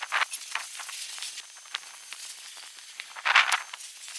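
Chalk scraping on asphalt while writing: short scratchy strokes, with a louder run of strokes about three seconds in.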